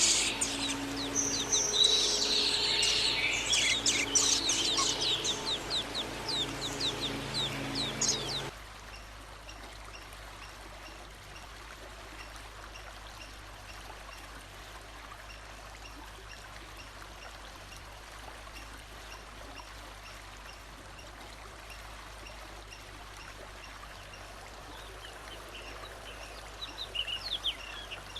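Songbird singing a rapid, loud run of whistled notes and trills that stops abruptly about eight seconds in. A quieter steady background hiss follows, with faint, evenly repeated high chirps, and a short burst of song returns near the end.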